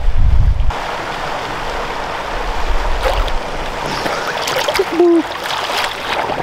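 Pool water splashing and lapping as a swimmer surfaces and strokes right beside the edge, with sharper splashes from about three seconds in and one short, louder sound about five seconds in. A low wind rumble on the microphone stops just under a second in.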